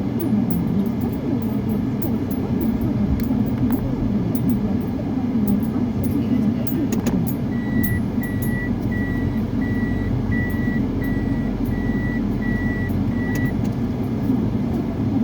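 A motor vehicle running, with a steady low engine-and-road rumble. About halfway through, a warning beeper sounds about eight short high beeps, evenly spaced a little under a second apart, and then stops.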